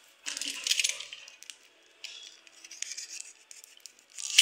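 Clear plastic bag crinkling and rustling as it is handled and slit open with a utility knife, in several bursts with a louder rustle near the end.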